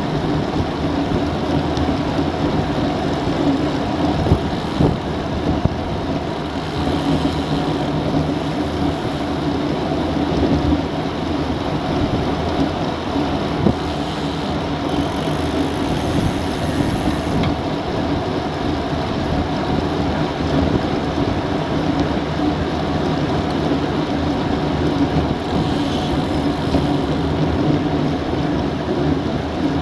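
Steady rush of wind and road noise from road bikes riding at about 34 km/h, heard through a bike-mounted action camera's microphone.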